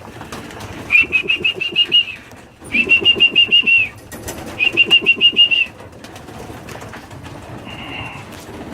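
Pigeons in a loft making three loud bursts of rapid, even pulsing, about eight pulses a second, each burst about a second long, with a high whistle-like tone over it.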